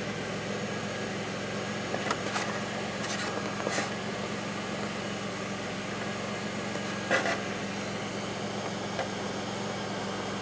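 2002 Pontiac Grand Prix's 3800 V6 idling steadily, on an engine the owner says idles rough and bogs. A few brief sharp knocks or clicks stand out over the idle about two seconds in, near four seconds and about seven seconds in.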